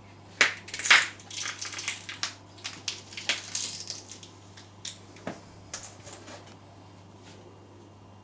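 Raw carrots crunching and snapping under a stiletto heel and sole: a dense run of crunches starting about half a second in and lasting a few seconds, then a few scattered cracks.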